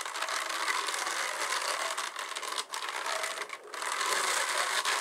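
Hand-cranked drum carder turning steadily: a whirring rasp of its wire-clothed drums brushing through wool as fibre is trickled onto the large drum. The sound dips briefly twice a little past the middle.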